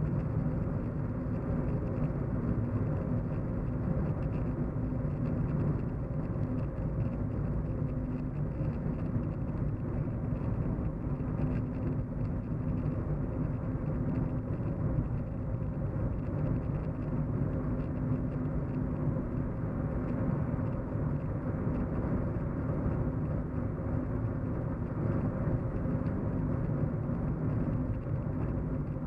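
Steady low road hum inside a moving car: engine and tyre rumble, with a faint steady drone on top.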